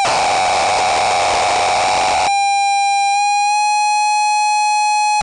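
Harsh noise: a dense wall of electronic noise with a steady whistling tone through it, which cuts off suddenly a little over two seconds in. It leaves a single buzzing electronic tone with overtones that steps slightly up in pitch and holds.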